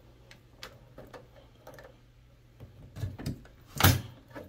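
Brass doorknob being turned and rattled on a door that is hard to open, its latch clicking several times, with a louder knock a little before the end.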